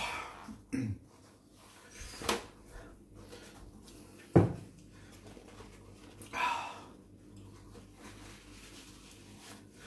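Kitchen paper towel torn off the roll and handled, in a few short scattered rustles, with one sharp knock about four and a half seconds in.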